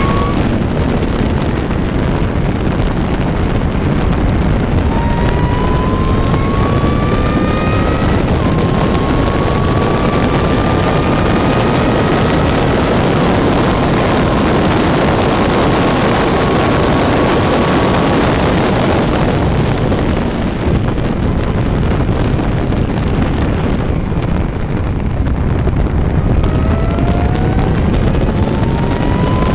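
Race engine heard from onboard, accelerating hard through the gears: its note climbs in pitch and drops back at each upshift, holds steady for a while, and climbs again near the end, all under heavy wind rush.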